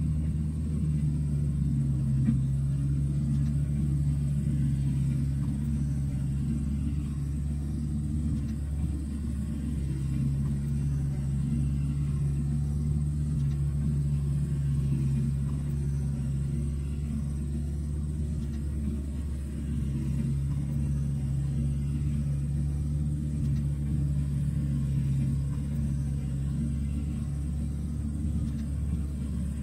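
Diesel engine of a John Deere tracked log loader running steadily as it works its knuckleboom grapple, a low drone whose deeper hum fades and returns a few times as the load changes.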